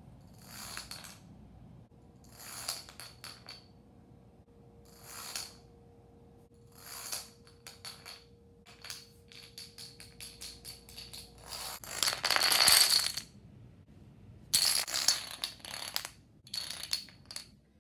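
Plastic dominoes toppling and clattering on a wooden floor, in several separate runs of rapid clicks. The loudest, densest clatter comes about two-thirds of the way through.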